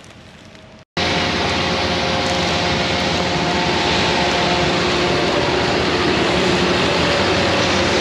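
John Deere tractor's diesel engine running as it pulls a grain cart across the field, with a steady hum and rumble. It cuts in suddenly about a second in after a quiet moment.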